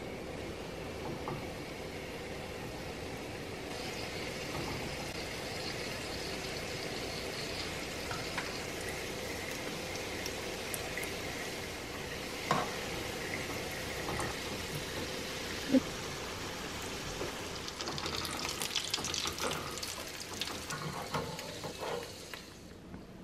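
Pastry triangles deep-frying in hot oil in a pan: a steady sizzling fizz, with the crackle growing busier near the end. Twice there is a sharp knock as the slotted spatula touches the pan.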